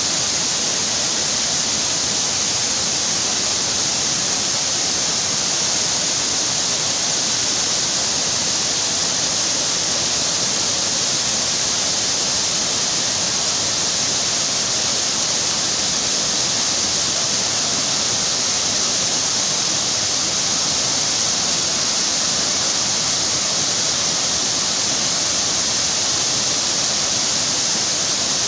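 Steady rush of a muddy torrent of rain runoff pouring down a rocky landslide slope and over a washed-out road, an even, hissing roar of water.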